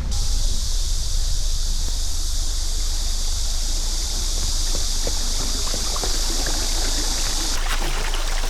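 Clear mountain stream rushing over rocks: a steady hiss of water that cuts off suddenly near the end.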